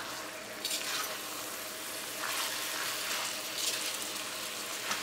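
Chicken pieces sizzling in oily tomato masala in a stainless steel wok while being stirred. A slotted spatula scrapes through the pan in a few strokes over a steady sizzle.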